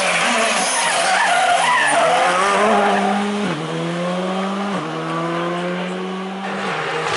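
Rally car accelerating hard away from the camera, its engine rising in pitch and shifting up twice in quick succession, with tyres squealing in the first couple of seconds.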